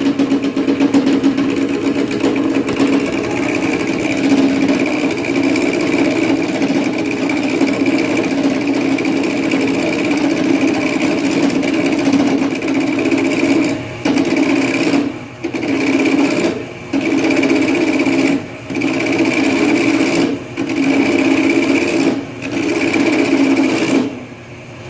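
A turning tool cuts into a square wood blank spinning on a vintage Oliver wood lathe, making a loud, steady buzzing chatter. About halfway through, the cut breaks off briefly every second or two as the tool is lifted and set back against the wood. The tools are not sharp enough, and they leave the wood rough and chewed.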